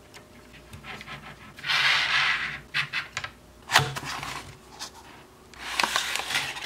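Model train packaging being handled: a cardboard window box and its clear plastic tray rubbing and scraping, with a few light clicks and taps. There is a rubbing burst about two seconds in, a sharp click near four seconds, and a scrape near the end as the plastic tray slides out of its cardboard sleeve.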